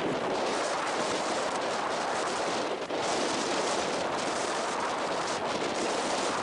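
Storm-force wind buffeting the microphone, a loud steady rushing with a brief lull about three seconds in.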